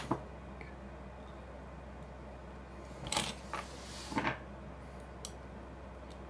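Soldering wires onto a camera shutter's circuit board: a small click at the start, then a few short hissing sizzles about three to four seconds in as the soldering iron tip melts solder and flux on the joints, over a faint steady low hum.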